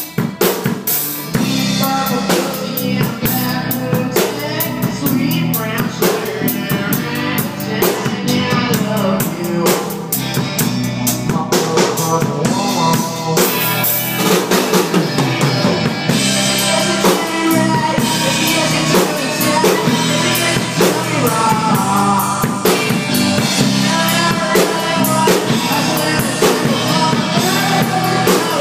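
A rock band playing loudly: drum kit, electric bass and electric guitar together in one dense, continuous stretch with no break.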